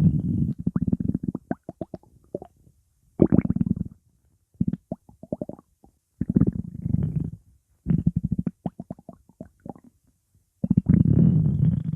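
Stomach growling: gurgling rumbles full of quick bubbling clicks, coming in about half a dozen bursts with short silent gaps between them.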